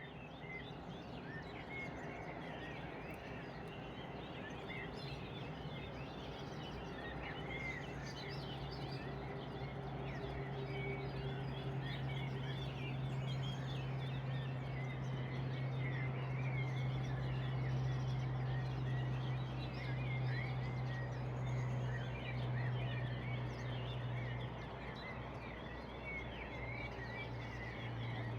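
Many small birds chirping and twittering together in a dense, unbroken chorus, over a steady low hum that is strongest through the middle and eases near the end.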